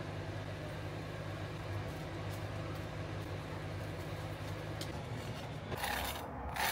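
Steady low hum under faint sizzling from a sandwich toasting in a frying pan. About six seconds in, a knife saws through the crisp toasted bread on a cutting board, a scratchy crunching.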